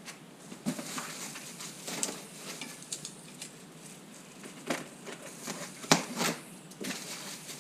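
Irregular clicks, rustles and light knocks of parts and packaging being handled during e-bike assembly, with a sharper knock about six seconds in.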